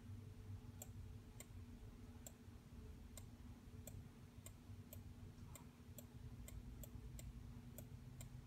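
Faint computer mouse clicks, irregular, about two a second, as outlines are traced with the line tool in MS Paint, over a steady low hum.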